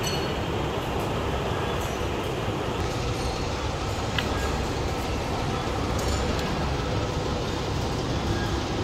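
Steady rumble and hiss of running workshop machinery, with one short sharp click about four seconds in.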